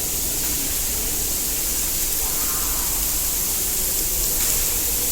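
Heavy artificial rain pouring in a Rain Room installation: a steady, dense hiss of falling water.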